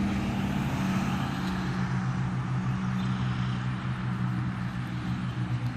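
A motor vehicle's engine running, a steady low hum over a hiss that eases off slightly over a few seconds.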